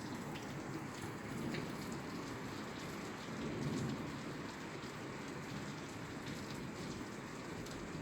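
Steady rain falling on a roof, a dense patter with scattered individual drop ticks. A low rumble swells up briefly twice, the second time more strongly, a little before halfway.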